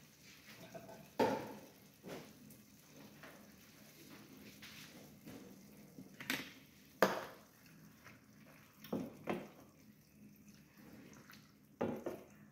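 Kitchen clatter: about eight short knocks and clinks of pots, dishes and utensils, scattered through a few seconds, over a faint steady hiss. Near the end a wooden spatula knocks in a stainless frying pan as stirring begins.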